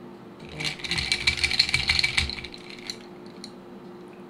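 Wooden hand spice mill being twisted over food: a run of rapid, crunchy ratcheting clicks starting about half a second in and lasting about two seconds, followed by a few faint ticks.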